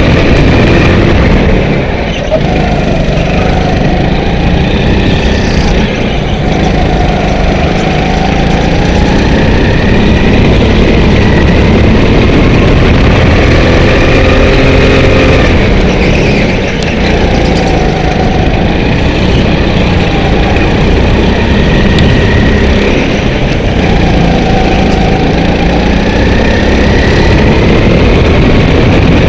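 Go-kart engine heard loud and close from on board while lapping a track, its pitch climbing and falling back again and again as the throttle opens and closes.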